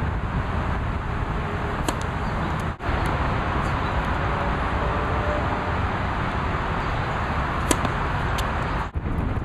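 Steady wind rumble on the microphone, broken by a few sharp pops of a tennis racket striking the ball on the serve. The clearest pop comes near the end.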